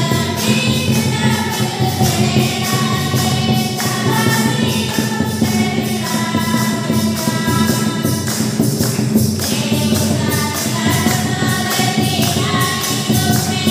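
Choir of voices singing a devotional hymn together, with a tambourine keeping a steady beat.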